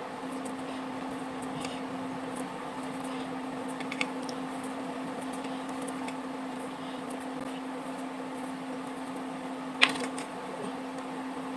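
A steady mechanical hum runs throughout, with a few soft clicks as a small knife slices fish balls and the pieces drop onto a plate. There is one sharper tap near the end.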